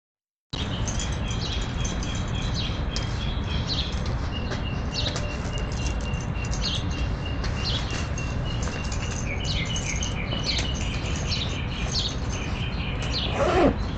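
Many small birds chirping over a steady low background noise, with a thin steady high tone held for most of the time. Near the end a single loud call sweeps sharply down in pitch.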